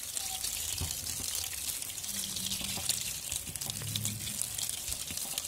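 Tap water running and splashing over raw chicken pieces in a plastic colander in a steel sink while a hand turns and rubs them clean, with small knocks of the pieces and colander.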